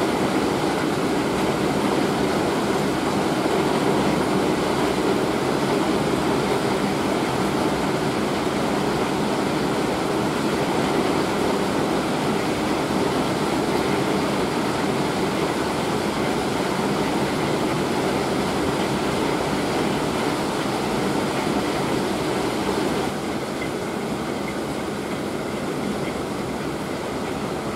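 Hail and heavy rain falling hard, heard from indoors as a steady, dense clatter that eases slightly near the end.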